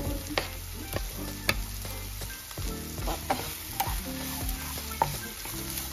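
Sliced onion, garlic, chilli and spring onion frying in oil in a non-stick pan, stirred with a wooden spatula: a steady sizzle with irregular scrapes and taps of the spatula against the pan.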